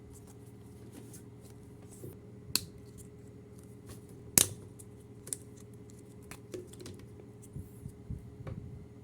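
Scattered sharp clicks and snaps of plastic toy pieces and packaging being handled during an unboxing, with two louder snaps about two and a half and four and a half seconds in.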